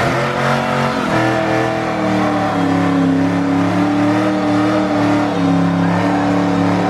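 A car engine held at high revs, its pitch wavering slightly and dipping about a second in before settling at a steady high note.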